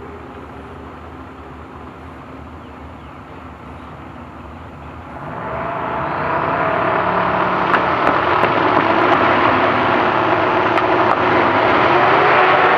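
Twin-turbo V8 of a Holden Torana drag car idling steadily at the drag-strip start line, then revving up about five seconds in and holding at high revs, much louder and steady, as the car stages for its launch.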